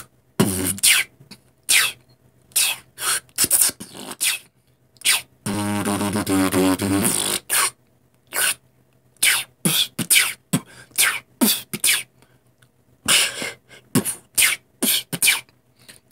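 A man beatboxing: a string of sharp mouth-made percussion hits in an uneven rhythm, with a sustained buzzing vocal bass tone lasting about two seconds near the middle.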